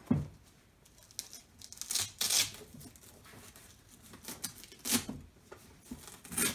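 Hook-and-loop (Velcro) fasteners on a toolbox's fabric tool pallets being pulled apart: a half-second rip about two seconds in, and shorter rips near the end, with a low thump at the start and rustling handling in between.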